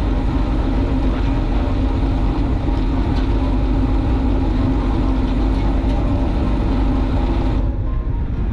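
Wind buffeting the microphone and road noise from the electric Surrey bike moving along a paved street, a steady heavy rumble. The highest hiss drops away near the end.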